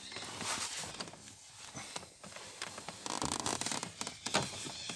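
Plastic interior trim being handled and pushed into place, scraping and rustling with quick small clicks about three seconds in.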